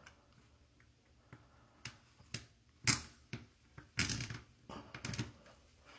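Small metal hardware clicking as lock washers and nuts go onto toilet closet bolts: about seven sharp, irregular clicks and knocks.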